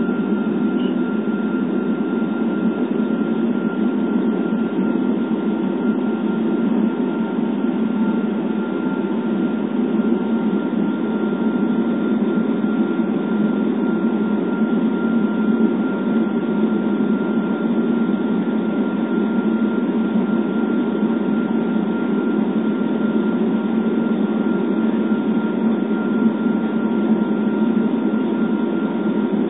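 Steady cabin noise of a jet airliner in flight, heard from a window seat over the wing: an even, low rushing hum of engines and airflow, with a faint, thin high whine held at one pitch.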